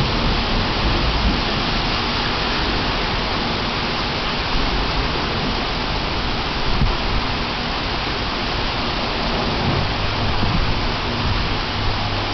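Heavy downpour: a steady, dense hiss of rain falling, with a low rumble underneath.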